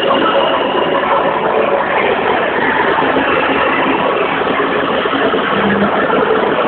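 Loud, steady din of a crowd in a large exhibition hall.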